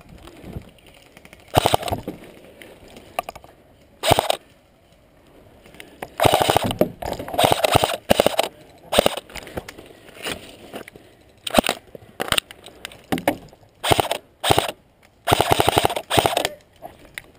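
Airsoft rifles firing on full-auto in repeated bursts, some short and some over a second long, with quiet gaps between; the longest runs come at about six to eight seconds in and again near the end.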